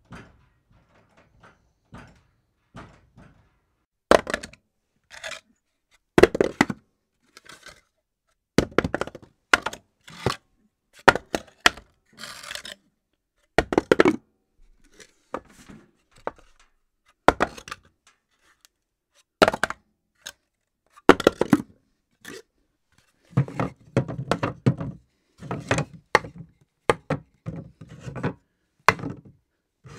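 A series of separate impact sound effects: sharp thuds and knocks, irregularly spaced, with a denser run of heavier, lower hits near the end.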